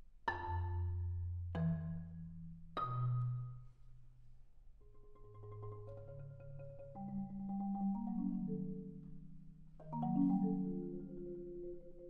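Solo marimba played with mallets: three loud accented strikes in the first three seconds, each leaving low notes held and ringing, then quieter notes climbing higher, and another loud accent about ten seconds in followed by held notes.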